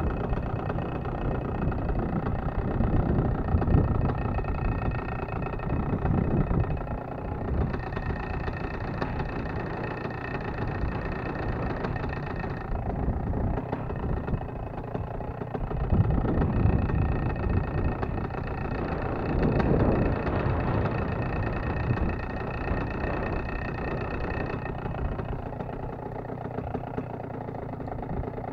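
Paramotor engine idling steadily, with low gusts of wind rumbling on the microphone now and then.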